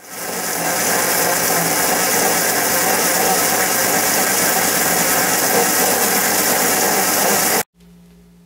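Mini metal lathe running and turning a workpiece: a loud, steady mechanical noise that fades in and stops abruptly near the end.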